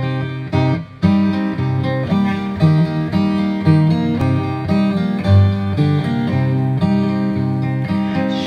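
Dreadnought acoustic guitar played solo: an instrumental introduction of strummed chords and single-note lines, with the notes changing every half second or so.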